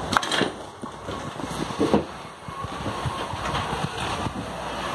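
Railway workshop background noise with scattered knocks and clatter, loudest near the start and about two seconds in; a faint steady whine comes in about halfway.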